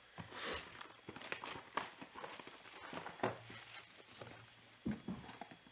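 Plastic shrink wrap being torn and peeled off a 2020 Panini Prizm football card box: irregular crinkling and rustling with scattered sharp clicks and scrapes.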